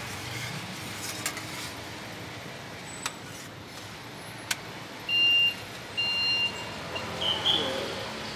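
Steady street traffic background with a few light metallic clicks from tongs and a spatula on a steel crepe griddle. Two short electronic beeps about five and six seconds in are the loudest sounds.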